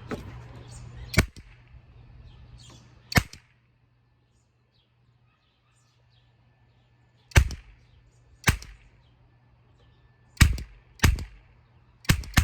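Toy MP5 cap gun firing caps as single sharp cracks, about seven shots fired one at a time at uneven spacing, with a pause of a few seconds after the first two.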